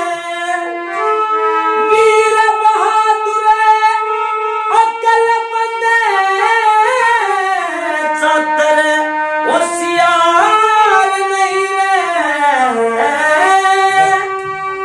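A man singing a Haryanvi ragni in long, held notes that slide between pitches, accompanied by a hand-pumped harmonium.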